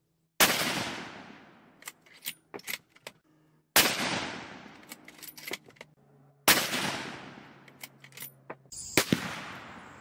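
Three rifle shots from a .243 Winchester bolt-action with a 20-inch barrel, about three seconds apart, each a sharp crack that echoes away over a second or two, with small clicks between as the bolt is worked. Near the end, a couple of further sharp cracks over a steady hiss.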